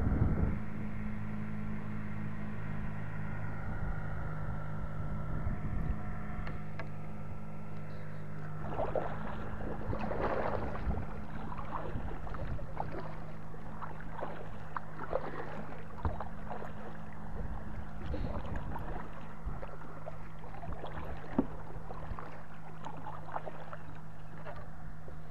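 Kayak paddle dipping and splashing in the water in irregular strokes, over a steady low hum.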